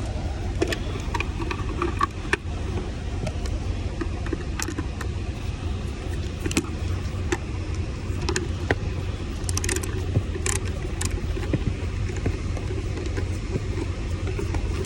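A steady low engine drone runs throughout, with scattered small clicks and taps as steering-column trim pieces and screws are handled and fitted.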